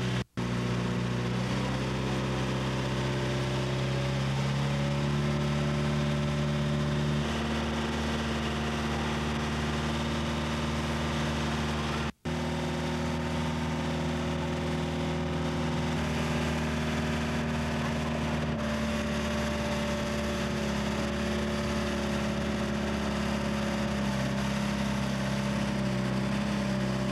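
A boat's engine running steadily, its low drone stepping slightly up and down in pitch a few times. The sound cuts out for an instant twice, just after the start and about halfway through.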